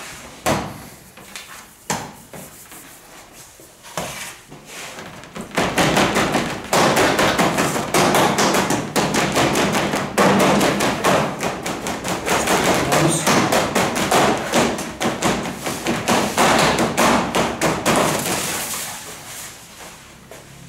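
Hands patting and pressing pan de muerto dough on a sheet-metal baking tray: a few separate knocks, then about five seconds in a long run of rapid tapping and knocking that eases off near the end.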